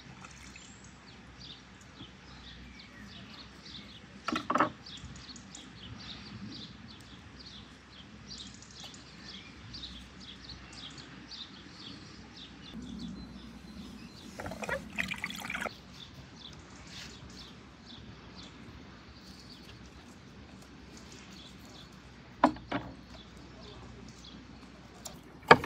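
Bell peppers being handled: water sloshes in a glass bowl as peppers are lifted out, a pepper is cracked and torn apart by hand in a noisy burst around the middle, and a knife knocks sharply on a wooden cutting board near the end. Small birds chirp throughout.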